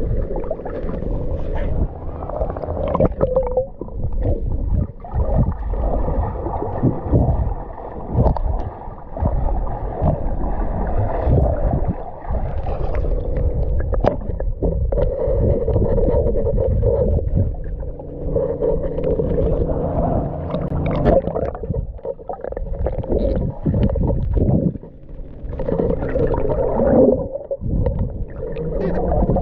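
Muffled water sloshing and gurgling picked up by a camera held underwater, a low rumble that surges and dips irregularly.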